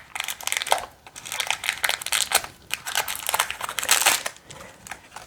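Crinkling plastic packaging being handled in uneven rustling bursts as a blind-pack toy is opened.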